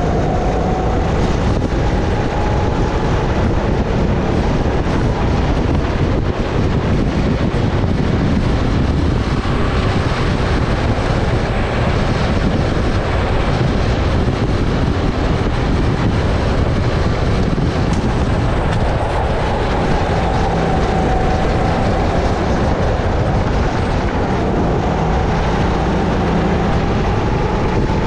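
Sodi RX-8 kart's 270cc four-stroke engine running hard on track, its pitch rising and falling with the corners, under a heavy, steady rushing noise on the helmet-mounted camera.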